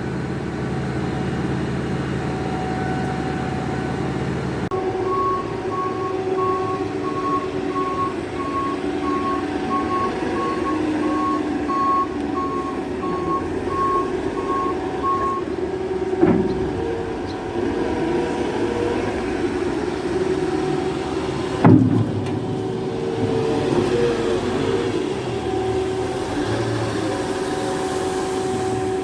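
Farm vehicle engine running steadily while its reversing alarm beeps about twice a second for around ten seconds, then stops. Two sharp knocks come later.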